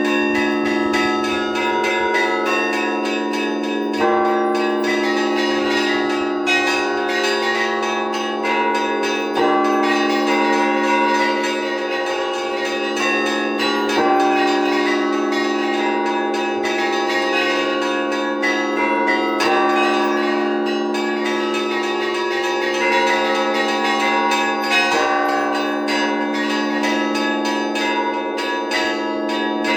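Orthodox cathedral bells rung in an improvised peal by a single bell-ringer: quick, busy patterns on the smaller bells over the held hum of the big bells. A heavier, louder stroke comes about every five seconds.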